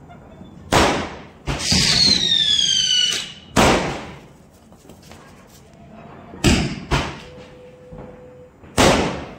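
Fireworks going off: about six sharp bangs, each trailing off. Between the first bangs a whistling firework falls in pitch for about a second and a half.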